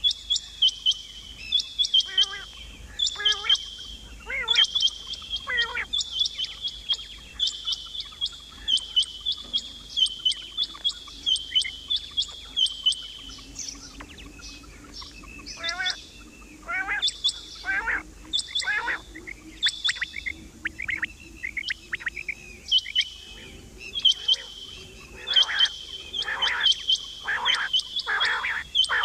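Female quail calling: quick runs of high, rapid chirps repeated over and over, mixed with lower sliding call notes that come more often in the second half.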